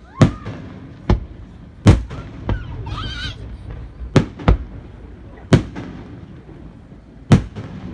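Fireworks shells bursting overhead: about eight sharp bangs at uneven intervals, each followed by a short rumbling echo, with a brief wavering whistle-like sound near the middle.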